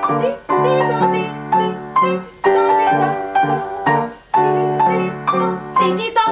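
Piano four-hands duet: two players at one keyboard playing a brisk passage of notes, in phrases broken by brief pauses.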